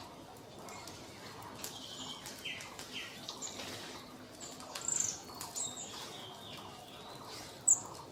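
Scale-breasted munias chirping: scattered short, high calls, with one loud, sharp call near the end.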